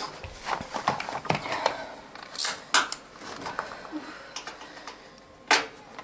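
Scattered clicks, knocks and clattering of hard parts as a partly dismantled washing machine is handled and worked on, with sharper knocks about two and a half, three and five and a half seconds in.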